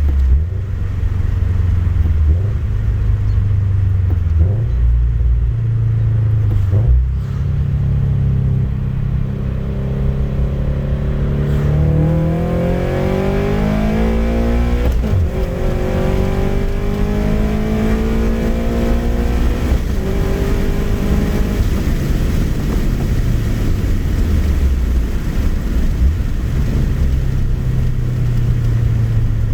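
Toyota GT86's flat-four boxer engine, breathing through an unequal-length header, a dual resonated front pipe and a TRD axle-back exhaust, pulling hard. The note runs steady and low at first, then climbs in pitch, drops sharply once about halfway through at a gear change, and climbs again. It then falls away and settles to a steady low note near the end.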